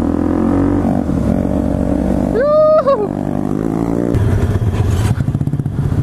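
Small single-cylinder four-stroke pit bike engine running underway, pulling harder with a deeper, pulsing exhaust note from about four seconds in. About halfway through, a brief held high tone sounds over it.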